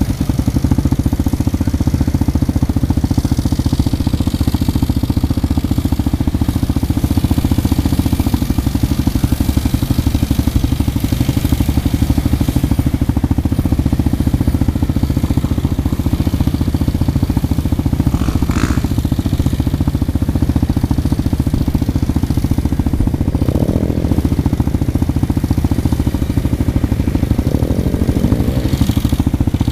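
Six-wheel amphibious ATV's engine running steadily as the vehicle swims across a pond, its spinning tyres throwing up water.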